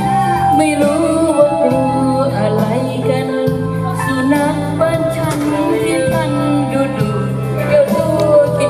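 A song with a singer over electronic keyboard accompaniment, played loud through speakers.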